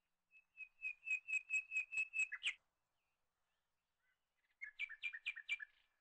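A bird calling: a quick series of about ten evenly spaced whistled notes, about four a second, then a shorter series of about five notes near the end.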